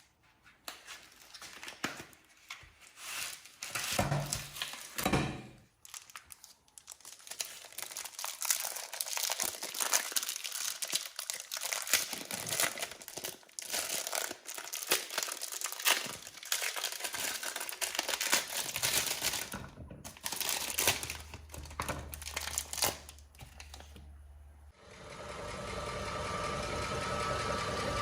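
Irregular crinkling and tearing of packaging for most of the stretch. About 25 seconds in, a meat grinder's motor starts and runs steadily.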